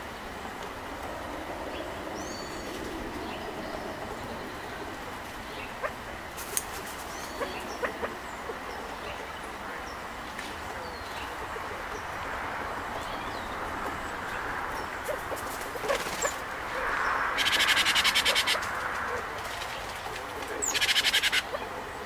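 Scattered short bird chirps over a steady outdoor background hum, with a few light clicks. Near the end come two loud rattling whirs a few seconds apart, the first lasting about a second and a half.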